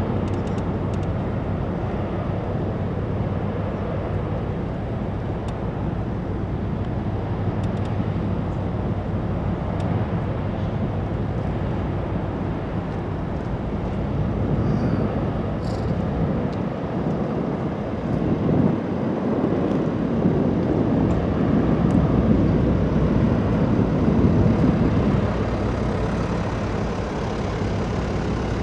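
Steady low engine hum over outdoor background noise, swelling louder for several seconds about two-thirds of the way through.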